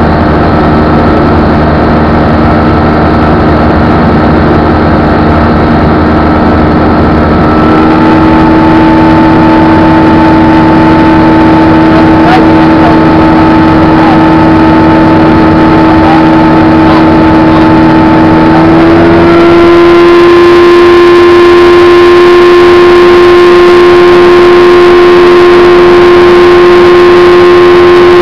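Lightwing light aircraft's engine and propeller running steadily in cruise, heard loud from inside the cockpit. The engine note steps up slightly about a quarter of the way in and again about two-thirds through, as the power is eased up.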